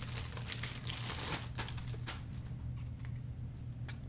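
Clear plastic bag crinkling and rustling around a CGC-graded comic slab as it is handled, with irregular rustles mostly in the first second and a half and a sharp click near the end.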